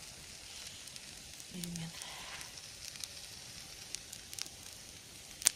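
Wood campfire burning, crackling with scattered sharp pops over a steady hiss; the loudest pop comes near the end.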